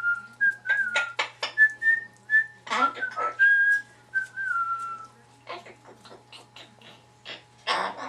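An umbrella cockatoo whistling a run of short notes that slide up and down in pitch, mixed with clicks, for about five seconds. Scattered clicks follow, and a harsh noisy burst comes near the end.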